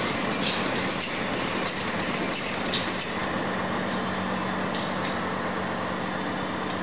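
Diesel machinery running in a fishing motor ship's engine room: a steady mechanical din with a constant hum, and a quick run of sharp clicks and clatters in the first half.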